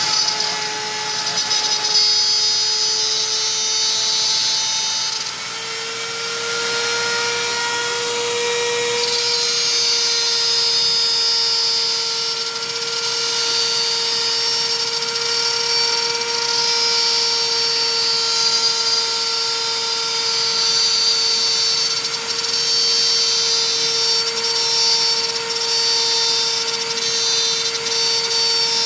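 CNC router's 32,000 rpm spindle running and cutting a workpiece: a steady high whine with a hiss of cutting over it. The pitch rises slightly about five seconds in and then holds.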